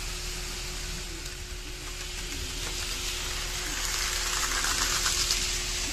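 N-gauge model freight train, an electric locomotive hauling wagons, running past on the track, its wheels rolling on the rails and its motor running. The sound swells as the train passes close, loudest about four to five seconds in, then eases.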